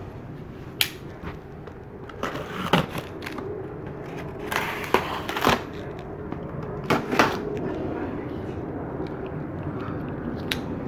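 Cardboard shipping box being opened and unpacked by hand: irregular knocks, scrapes and rustles of cardboard and packing, with a louder cluster around the middle.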